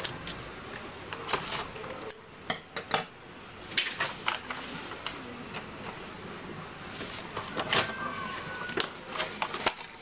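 Paper being handled in short, irregular rustling bursts: scissors trimming wrapping paper around a notebook cover, then sheets sliding and being smoothed flat by hand.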